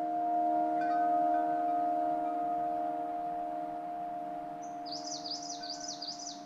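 Sustained ringing bell tones at several pitches, struck again about a second in and slowly fading. Near the end a bird sings four quick rising-and-falling high notes.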